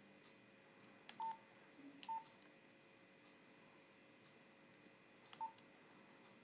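Nokia 3310 keypad tones: three button presses, each a small click followed by a short beep, the first two about a second apart and the third some three seconds later.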